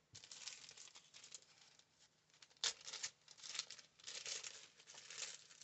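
Faint rustling and handling of paper and craft supplies on a desk, with one sharp click about two and a half seconds in.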